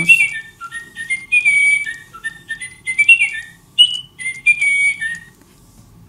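Little Live Pets Love Birds robotic toy bird playing a whistled song through its small speaker in response to being petted: a quick string of short whistle notes hopping up and down in pitch, ending about five seconds in.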